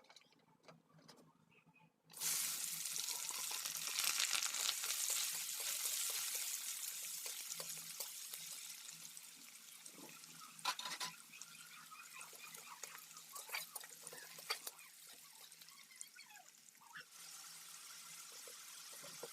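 Sizzling in a kadhai, starting suddenly about two seconds in and slowly dying down, with a few sharp clicks along the way.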